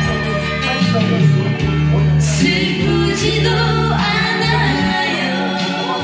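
A Korean pop song playing from a vinyl record through the bar's large JBL studio monitor speakers, a singing voice over sustained bass and instrumental backing, heard in the room.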